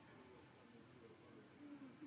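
Near silence: only a faint background hum.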